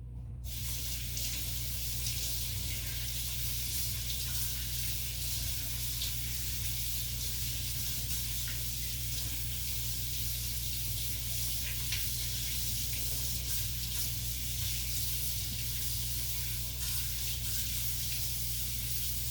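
Kitchen sink tap running steadily while a monkfish fillet is rinsed under it; the water starts about half a second in, over a constant low hum.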